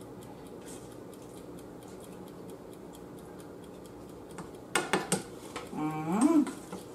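Cooking utensil stirring green beans in a saucepan, clinking sharply against the pot a few times about five seconds in. Just after, a short rising hum from a voice.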